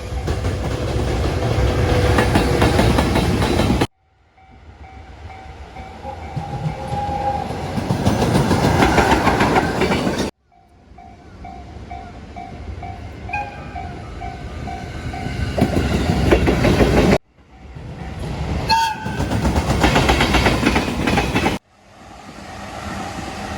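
Freight trains passing over a level crossing, in several short cuts that each build from quiet to loud: rhythmic clatter of wheels over rail joints, with a level-crossing warning bell ringing in short repeated tones. A short train horn blast sounds about three-quarters of the way through.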